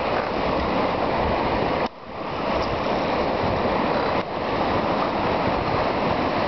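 Steady loud rushing noise of wind and water at a riverbank, dropping out abruptly for a moment about two seconds in and again about four seconds in.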